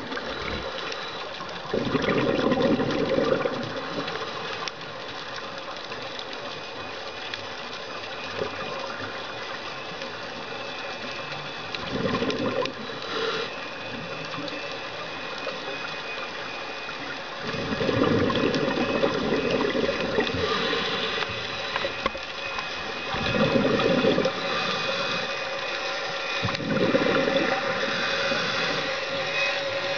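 Scuba diver's regulator underwater: bursts of exhaled bubbles, five in all at irregular spacing, over a steady crackling hiss.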